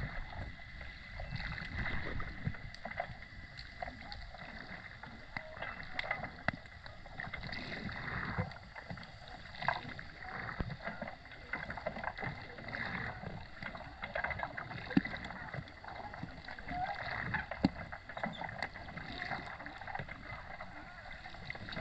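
Underwater ambience: a continuous muffled wash of water movement and low rumble, with many scattered small clicks and crackles.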